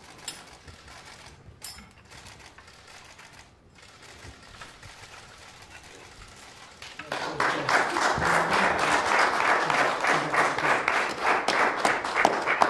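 A small group of people applauding, breaking out suddenly about seven seconds in after a quiet stretch, as the flag is unfurled.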